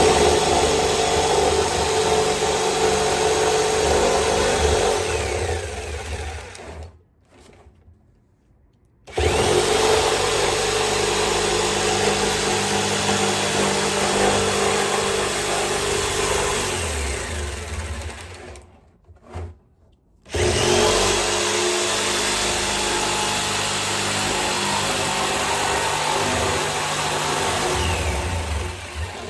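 Jigsaw cutting through a 55-gallon barrel, running steadily in three long runs with two short pauses, one about seven seconds in and one about nineteen seconds in.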